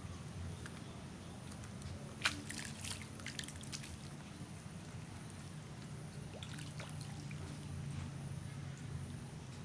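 Bait thrown by hand onto a pond's surface, its particles pattering and trickling into the water in a quick spatter about two seconds in, with a lighter patter near seven seconds.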